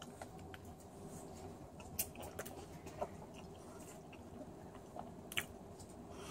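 Faint chewing of a mouthful of bologna spread with Nutella, with a few soft wet mouth clicks, the clearest about two seconds in and again past five seconds.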